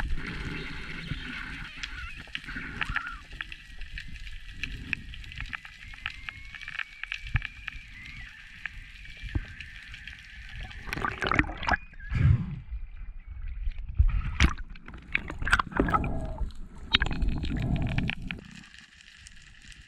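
Underwater water noise: gurgling and sloshing around a diver's camera. It grows louder and more irregular in the second half, then drops away near the end.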